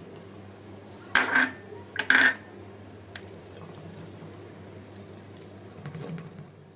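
Glass tumbler grinding and knocking against the bottom of a metal pot as it crushes lumps of palm jaggery in a little water. It gives two sharp clinks, about a second in and again a second later, then quieter pressing and scraping.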